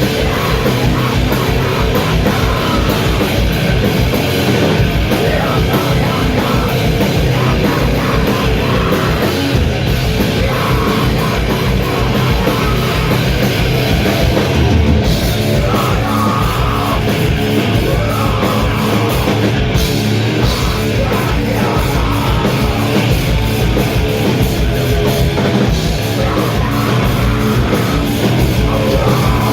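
Heavy metal band playing live: distorted guitars, bass and pounding drums in a loud, dense wall of sound, recorded in a club.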